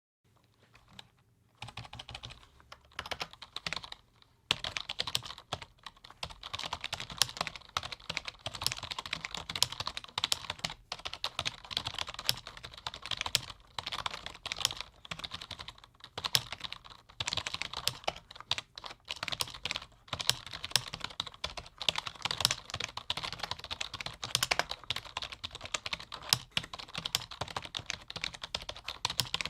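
Typing on a low-noise computer keyboard: fast, irregular key clicks in runs, starting about a second and a half in, with a short pause near four seconds.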